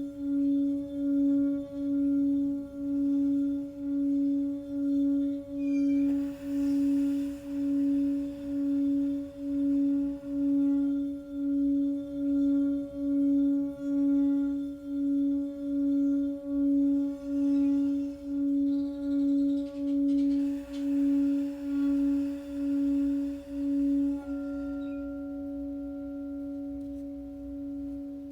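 Singing bowl sounding one sustained low tone that swells and dips in a steady pulse about once a second. Near the end the pulsing stops and the tone rings on evenly.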